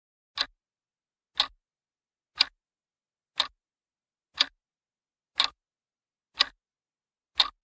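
Countdown-timer clock sound effect ticking once a second, eight sharp ticks.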